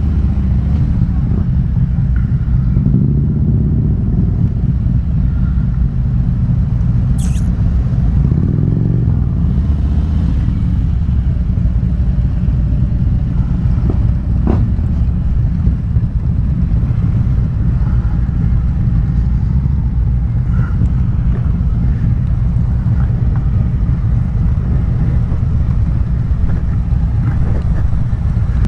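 Harley-Davidson Electra Glide's V-twin engine running steadily at low revs, its pitch rising and falling briefly about eight seconds in.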